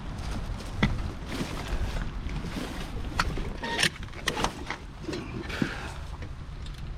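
Objects being handled and shifted in a rubbish pile: scattered short knocks, clicks and rustling over a steady low rumble.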